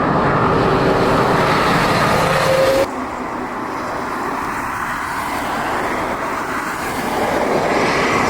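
Jet airliner engines making a steady noise as a plane passes. The noise changes abruptly about three seconds in to a quieter stretch of the same kind of noise, which builds again near the end.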